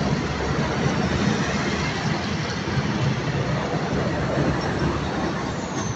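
Diesel engine of an Isuzu cab-over box truck running as the truck drives past, over steady road traffic noise.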